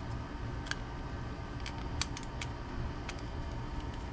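Small plastic and metal parts of an RC car differential and gearbox case clicking and knocking as they are handled and fitted together: about half a dozen short, sharp clicks over a steady low hum.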